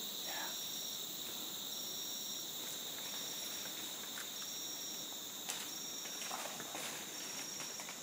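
Rainforest insect chorus of cicadas or crickets: a steady high-pitched drone with a pulsed call repeating about every second and a half.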